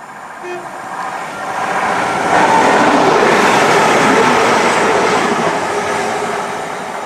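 Northern Class 195 diesel multiple unit passing at speed without stopping. Its rushing noise builds over about two seconds, holds loud for a few seconds, then fades away.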